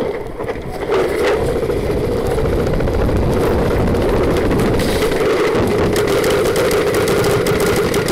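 Loud wind and movement rumble on a helmet-mounted camera as the wearer runs, with a fast run of sharp clicks from about five seconds in.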